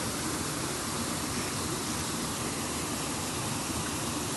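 Steady rush of flowing river water, an even hiss that neither rises nor falls.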